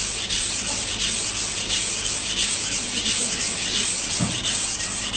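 Kitchen knife blade stroked back and forth on a wet whetstone: a steady, rhythmic scraping hiss of steel grinding in the stone's slurry.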